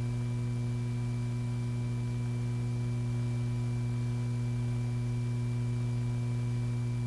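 Steady electrical hum with a faint hiss, unchanging throughout: background hum of an old film soundtrack, with no mechanical sound from the gun.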